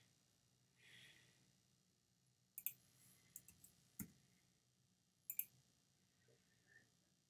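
Faint computer mouse clicks: a double click about two and a half seconds in, three quick clicks a little later, a single click at about four seconds, and another double click near five and a half seconds.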